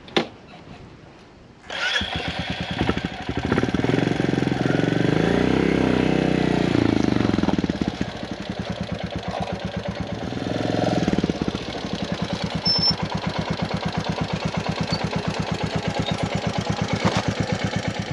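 A sharp click, then about two seconds in a Royal Enfield Classic 350's single-cylinder engine starts up, revs up and down twice, and settles into an idle with an even pulsing beat.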